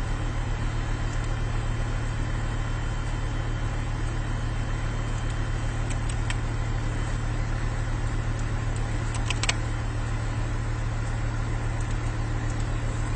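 Car engine idling with a steady low hum, and a few faint clicks about six and nine seconds in.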